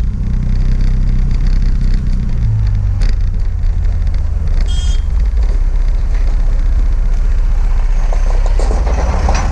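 Motorcycle riding along a road with a camera on the bike: a steady low engine rumble and wind noise on the microphone. There is a short horn beep about five seconds in. Near the end an oncoming Tata truck passes close, its noise growing louder.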